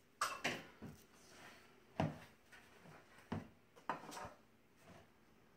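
A tablespoon scooping thick muffin batter, knocking and scraping against the mixing bowl and muffin pan: a string of irregular sharp knocks with short scrapes between them.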